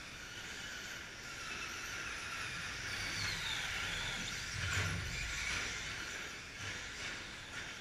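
Electric short-course RC trucks with 17.5-turn brushless motors racing on a dirt track. A steady high hiss of motors and tyres runs throughout, with a high motor whine falling in pitch as trucks pass about three seconds in and a low thump near five seconds.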